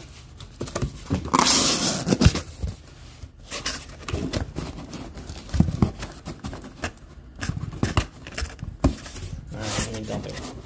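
Cardboard shipping case being opened and handled: packing tape and flaps pulled and torn, with a longer rasping burst about a second and a half in, then irregular scrapes and knocks of cardboard.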